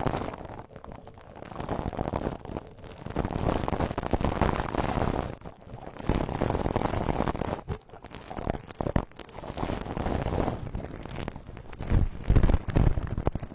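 Soft bristle brush swept over a binaural microphone for ASMR, swishing strokes in waves of a second or two. Heavy low rumbling comes from brushing right against the mic near the end.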